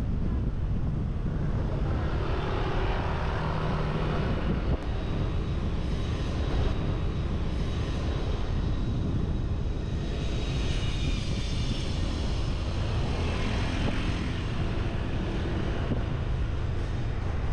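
Wind rumbling over the microphone of a camera riding on a motorbike, over the motorbike's running and road noise, with surrounding traffic swelling and fading twice.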